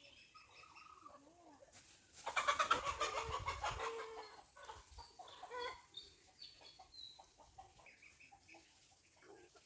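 Chickens clucking, with a loud burst of rapid squawking about two seconds in that lasts nearly two seconds, followed by scattered shorter clucks.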